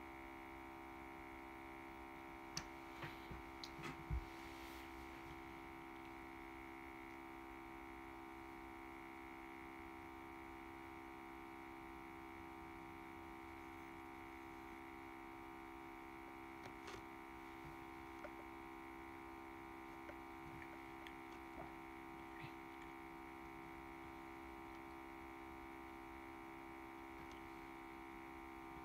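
Audio feedback: a quiet, steady drone of several held tones at once, some low and some higher, with a few faint clicks about three to four seconds in and scattered light ticks later.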